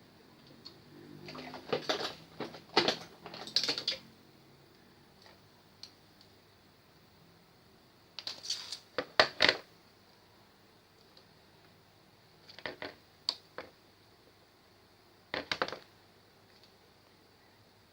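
Small hard parts and tools being handled, giving short bursts of clicking and rattling in four clusters, the loudest about nine seconds in.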